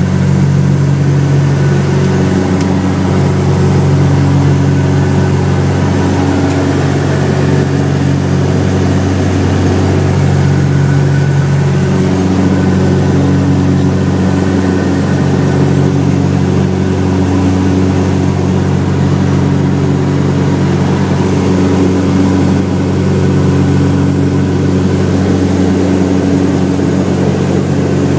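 Cockpit drone of a Cessna 404 Titan's twin turbocharged flat-six piston engines and propellers at cruise power, steady and loud. Its tones rise and fall slowly over a few seconds.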